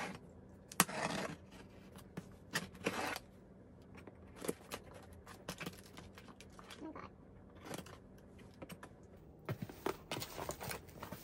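Packing tape being pulled off a cardboard shipping box and the flaps folded open: a few short tearing, scraping bursts with scattered clicks and cardboard rustling, busier near the end.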